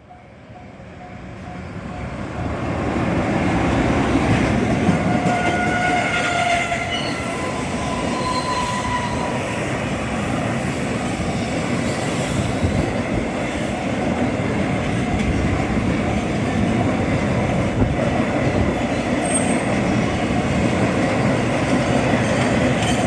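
EF210 electric freight locomotive and its train of Taki tank wagons passing close by: the rumble builds over the first three seconds, then a loud steady rolling noise of the wagons goes on, with a few brief high-pitched squeals about five to nine seconds in.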